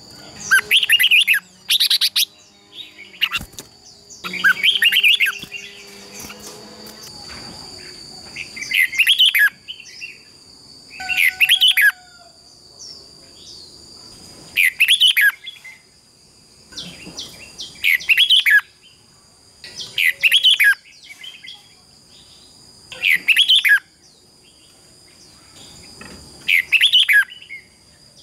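Red-whiskered bulbul singing short, loud, warbling phrases about every two to three seconds. A steady high-pitched tone hums underneath.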